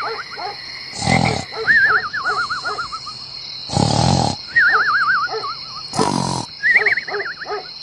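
Cartoon snoring sound effect: a rasping snore on the in-breath followed by a wavering, falling whistle on the out-breath, three times, about every two and a half seconds.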